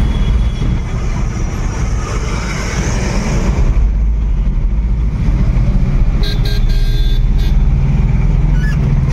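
Three-wheeler goods carrier's engine running in slow stop-and-go traffic, a steady low rumble heard from the driver's seat. A higher tone sounds for about a second, roughly six seconds in.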